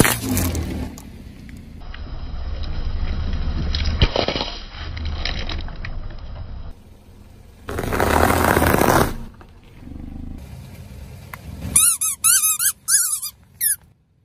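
A car tyre rolling over a series of objects, each crushed in turn. A drink can bursts and sprays at the start. A loud burst of noise comes about eight seconds in as the tyre goes over a pile of small orange balls. Near the end, rubber squeaky toy pigs give about six short, wavering squeals as they are pressed.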